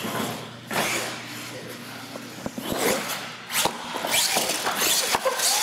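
Small R/C monster truck driven hard on a concrete floor: its electric motor whines in surges as the throttle is worked, the tyres scrub, and several sharp knocks come as it hops and lands.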